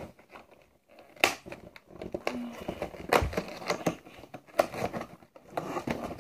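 Monster High doll box being handled and crinkled: irregular rustling with sharp crackles and clicks, the loudest about a second in and again about three seconds in.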